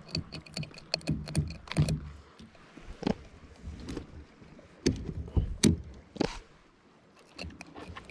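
Fishing gear being handled on a kayak: a run of small clicks, then several louder knocks and thumps against the hull and a plastic tackle box.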